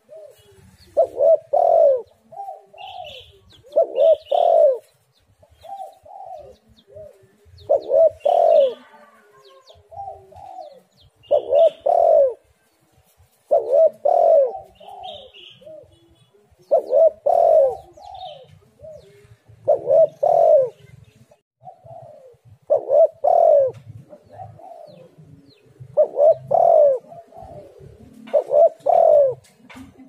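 Spotted dove (tekukur) cooing over and over, about one phrase every three seconds, each a loud double-noted coo with softer coos in between. A few short high chirps come in now and then.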